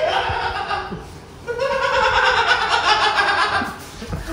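Young men laughing and calling out, in two stretches with a short lull about a second in.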